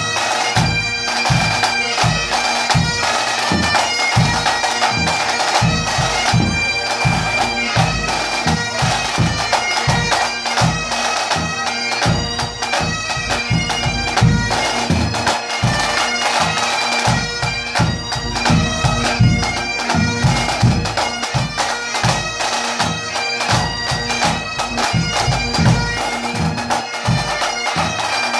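Pipe band playing: Highland bagpipes holding steady drones under the chanter melody, with snare drums beating along.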